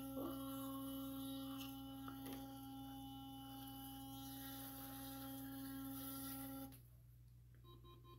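Philips Sonicare electric toothbrush running in the mouth during brushing: a steady hum that cuts off suddenly about seven seconds in.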